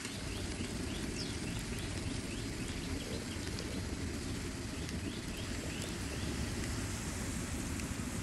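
Spring rolls deep-frying in a wok of oil, a steady sizzle over a constant low rumble, with short high chirps repeating through the first few seconds.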